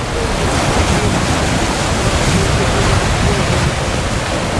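Sea surf washing and breaking over rocks along a rocky volcanic shoreline, a steady rushing.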